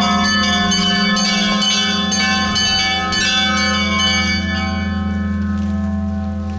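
Russian Orthodox church bells ringing: smaller bells struck in a quick, even rhythm, about three strikes a second, over the long low hum of a large bell. The ringing slowly gets quieter toward the end.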